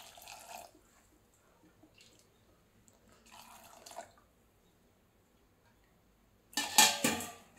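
Water poured from a steel tumbler into a small pressure cooker of dal and vegetables, splashing in two short pours. Near the end there is a loud, sharp knock or clatter.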